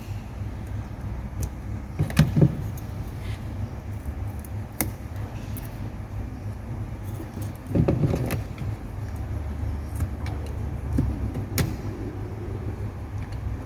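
Small clicks and handling noises of a cutter stripping the insulation of a coaxial cable to reach the inner core, with two louder scraping bursts about two seconds and eight seconds in. A steady low rumble runs underneath.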